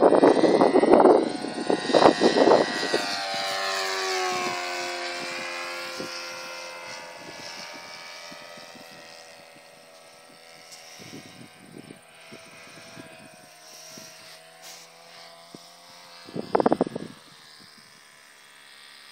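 Saito FA-80 four-stroke glow engine of a radio-controlled Hawker Hurricane model airplane flying past. Its note drops in pitch as it passes, then fades as the plane flies away. Loud rumbling bursts on the microphone come in the first couple of seconds and again briefly near the end.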